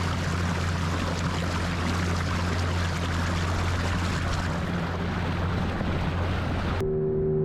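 A boat's motor running steadily under a rush of wind and water noise. About seven seconds in, it cuts off abruptly to music of sustained ringing tones.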